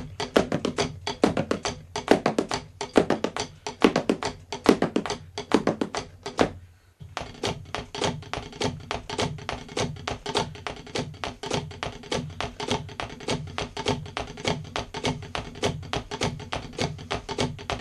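Hickory Vater 5B drumsticks played fast on rubber drum practice pads: a dense run of sharp taps and thuds that stops briefly about seven seconds in, then picks up again as a steady groove.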